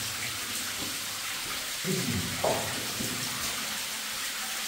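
Water running and trickling steadily over rock in a mine passage, heard as an even hiss. A brief low voice sound comes about two seconds in.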